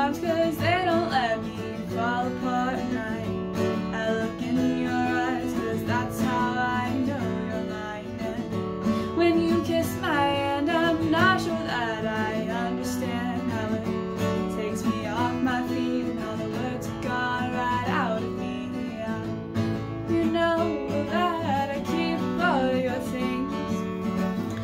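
Steel-string acoustic guitar strummed with a capo on the neck, with a woman singing a slow melody over it.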